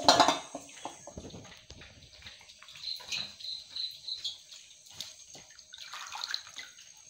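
Banana-leaf moode cups dipped and swished in a steel bowl of water to rinse them: a loud splash at the start, then lighter splashing and dripping.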